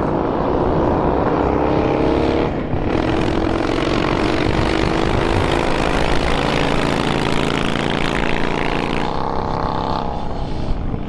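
Two pre-war motorcycles accelerating hard from a drag-race start. The rising engine note breaks off about two and a half seconds in, then climbs again through the next gear.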